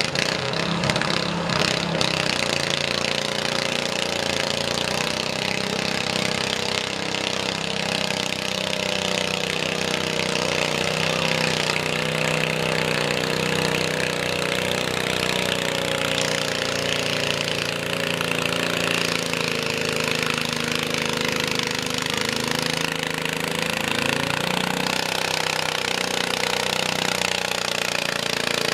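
Cub Cadet garden tractor engine running hard under load as it pulls a weight-transfer sled, with the front wheels lifting. The sound is a steady, rough engine note with only slight wavers in pitch.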